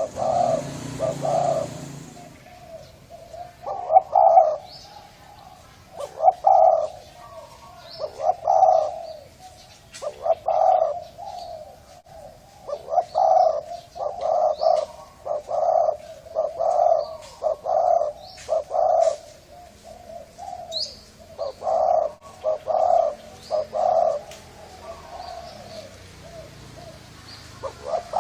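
A Thai-strain spotted dove with a deep, hoarse voice cooing over and over in short phrases, a new phrase every second or two, with a gap near the end. Small birds chirp faintly and briefly at a much higher pitch.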